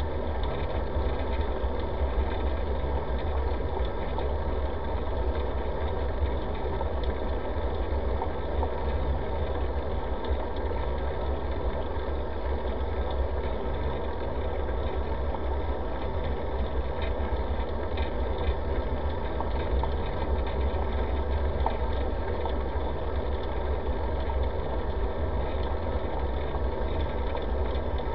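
Steady low rumble of wind and road vibration picked up by a bicycle-mounted camera while riding along a smooth paved path.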